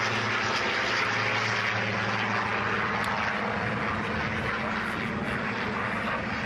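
Single-engine propeller aircraft flying overhead, its piston engine giving a steady, pitched drone.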